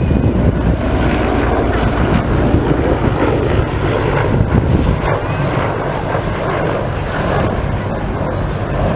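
Sikorsky CH-53 heavy-lift helicopter flying past: a loud, steady rotor and turbine noise. It eases off a little after about five seconds as the helicopter moves on.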